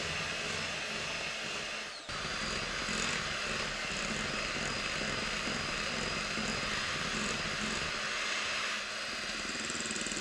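Electric hand mixer running steadily, its beaters whirring through cake batter in a glass bowl, with a momentary dip about two seconds in.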